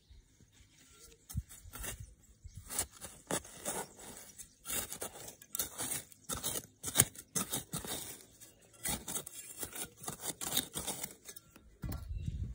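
Hands digging and scratching a hole in soil under a layer of grass-clipping mulch: a run of irregular scraping, tearing and crunching rustles that starts about two seconds in and stops shortly before the end.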